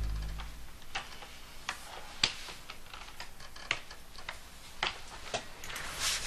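Background music fading out, then sparse, irregular light clicks and taps, one or two a second.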